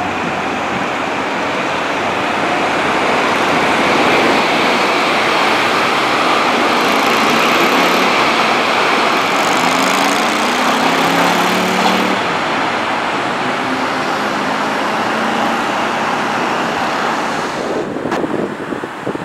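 Electric train passing at speed on the main line: a steady rush of wheels on rail and air, loudest about four to eight seconds in, with a low motor whine near the middle. It cuts off suddenly near the end.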